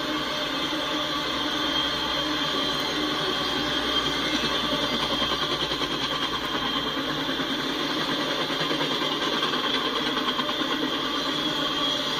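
Intermodal freight train cars loaded with containers and truck trailers rolling past, a steady rumble of steel wheels on rail that takes on a quick rhythmic pulsing about four seconds in.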